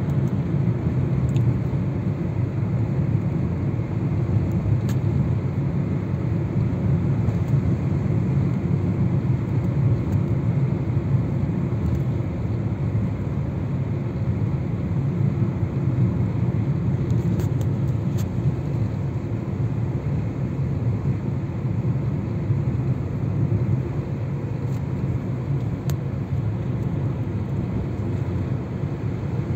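A car driving through a road tunnel, heard from inside the cabin: a steady low rumble of engine and tyres on the road.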